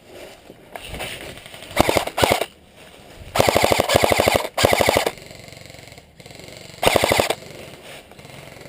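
Airsoft rifle firing full-auto in five short bursts of rapid clicking shots, the longest about a second.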